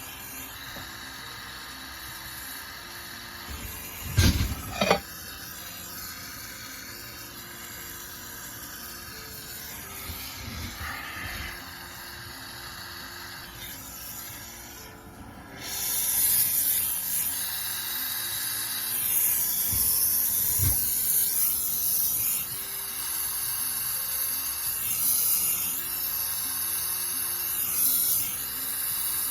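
Two sharp knocks about four seconds in, then a jeweller's torch burning with a loud, steady hiss from about halfway through, as used for soldering gold onto a buckle.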